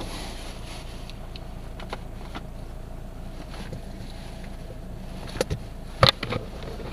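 Steady low rumble of a car driving slowly, heard from inside the cabin, with two sharp knocks near the end, the second louder.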